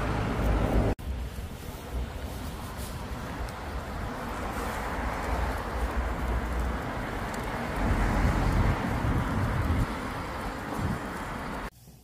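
Wind buffeting the microphone over a steady outdoor hiss, with gusty low rumbles; the sound drops out briefly about a second in and cuts off near the end.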